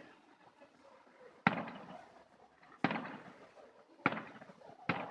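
Four fireworks explosions about a second apart, each a sharp bang that dies away over about half a second.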